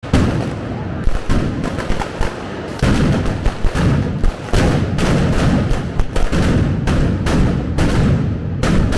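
A string of firecrackers going off in a rapid, irregular run of loud bangs, several a second.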